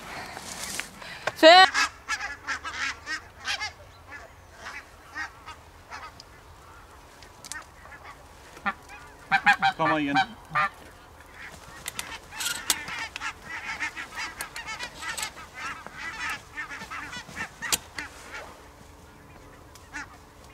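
Barnacle geese calling: many short, yapping honks overlapping one another, with louder calls about a second and a half in and again around nine to ten seconds in.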